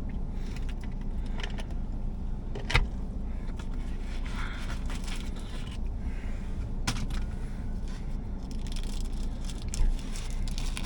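Food packaging being handled: scraping, crackling rustles and a few sharp clicks as the burger is unwrapped and taken out. A steady low hum lies underneath.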